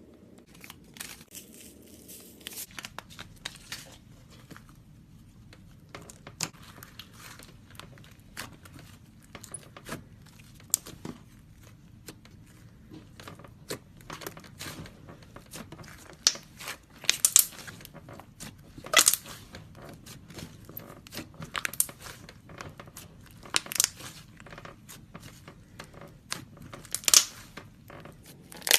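Slime being worked by hand, poked, pressed and stretched, giving an irregular run of clicks and crackling pops, with a few louder sharp pops in the second half.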